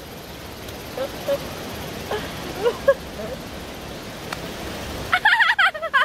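Mountain stream water running steadily, then a loud burst of laughter near the end.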